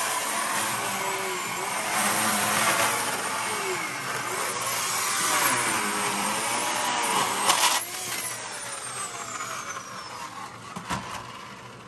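Corded electric chainsaw cutting into clay, its motor pitch wavering up and down as the chain bites and frees. About eight seconds in the sound drops off sharply and the saw winds down.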